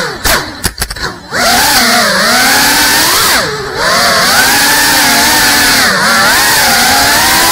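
Brushless motors and ducted propellers of a GEPRC Cinelog 35 FPV cinewhoop drone whining, the pitch rising and falling with the throttle. For about the first second the sound cuts in and out in quick chops, and a short throttle dip about three and a half seconds in drops the pitch and brings it back up.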